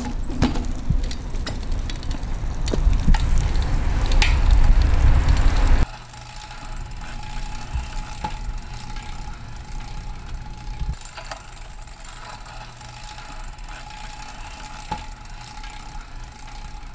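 Wind on the microphone and a BMX bike's tyres rolling on asphalt, a loud low rumble with a few clicks. About six seconds in it cuts off suddenly, leaving a quieter background with a faint steady high tone and occasional ticks.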